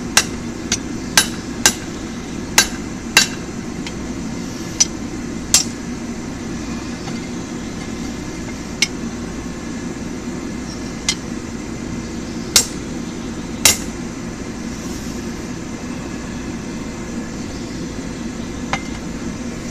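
Blacksmith's hammer striking a mild-steel tong blank on an anvil. About eight sharp, ringing blows come in quick succession in the first few seconds, then single blows every second or few. A steady low drone runs underneath.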